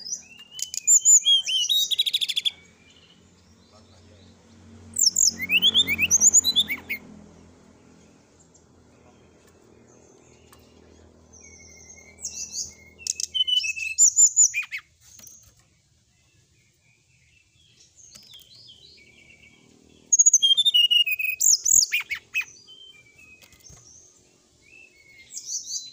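Brown-chested jungle flycatcher singing in about five short bursts of quick, high chirping phrases, with pauses between them.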